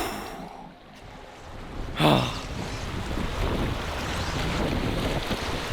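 Wind buffeting the microphone over washing waves. It starts with a loud gust about two seconds in and settles into a steady rushing; the first two seconds are quieter.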